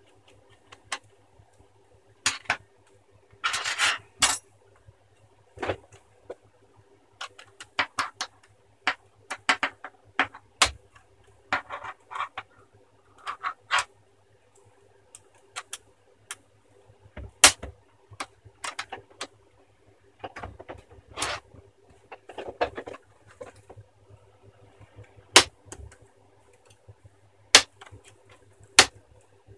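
Plastic screen bezel of a Sony Vaio laptop being pried off by hand and with a wooden-handled tool: irregular sharp plastic clicks and snaps, with a few short bursts of scraping.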